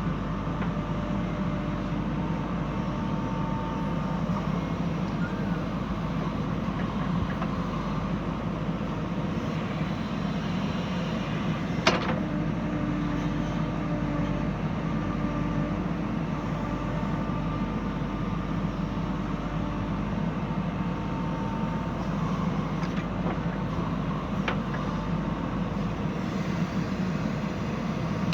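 Diesel engine of a JCB 3DX backhoe loader running steadily under work while loading soil, with one sharp knock about twelve seconds in.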